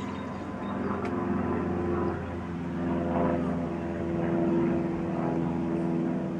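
Cessna F152 light aircraft flying low overhead, its four-cylinder piston engine and propeller giving a steady drone that swells a little midway as it passes.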